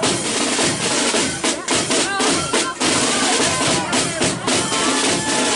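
A flute band's line of side drums (snare drums) played together in a steady, rapid marching beat.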